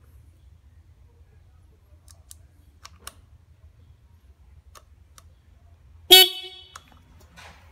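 A 2013 Kawasaki Ninja 650's electric horn sounds once, in a short beep about six seconds in, as the bike's electrics are checked. A few faint clicks come before it.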